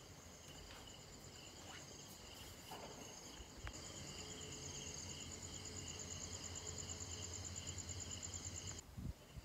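Crickets chirring at night: a faint, steady, high pulsing trill that gets louder about four seconds in, together with a low hum, and cuts off abruptly near the end.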